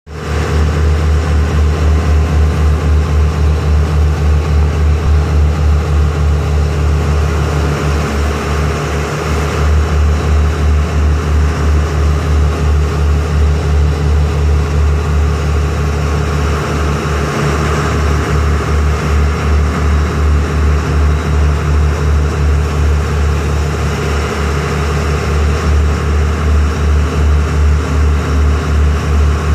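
A boat's engine running steadily underway, a deep, loud, fast regular throb, with a hiss of water rushing along the hull.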